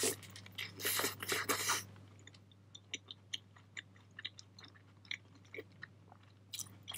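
A person biting into a beef cheeseburger and chewing with their mouth close to the microphone. There is a burst of crunching and rustling about a second in, then quieter chewing with small wet clicks.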